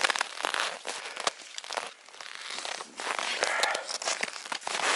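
Footsteps crunching through deep frozen snow, an uneven run of crunches that eases briefly about two seconds in.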